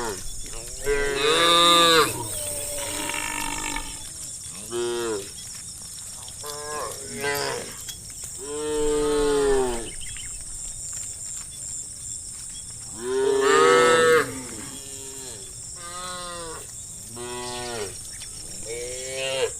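Cattle in a herd mooing over and over, calls of different pitch and length following one another, the loudest and longest about two, nine and fourteen seconds in.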